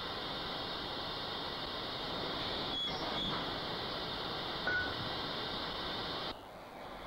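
Steady hissing noise with a few short high beeps about three seconds in and again near five seconds. It drops to a quieter, lower noise with a faint steady tone near the end.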